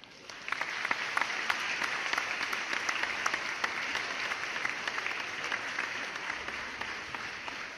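Applause: many hands clapping densely, starting suddenly and fading away near the end.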